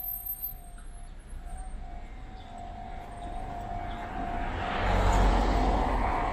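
A vehicle passing: its noise swells from about four seconds in and is loudest near five seconds, over a steady faint tone.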